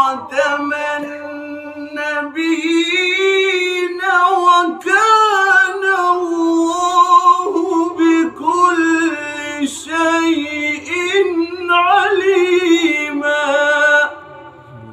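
A male qari's melodic Qur'an recitation (tilawat), unaccompanied: one high voice drawing out long notes with wavering ornamental turns, in phrases broken by short breaths. The voice stops about a second before the end.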